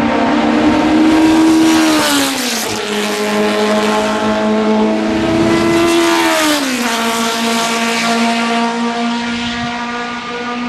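Historic Formula 1 race car engines at high revs. The pitch climbs steadily and then drops sharply twice, about two seconds in and again near seven seconds.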